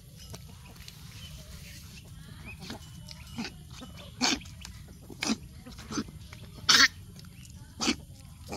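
Puppies yelping while they play-wrestle: several short, sharp yelps, about one a second, starting about three seconds in.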